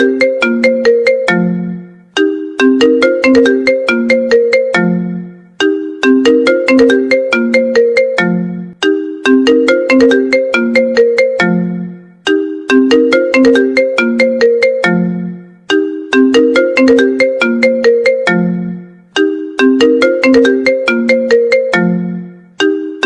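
Apple iPhone ringtone playing: a short melody of quick struck notes, each dying away, repeating about every three and a half seconds.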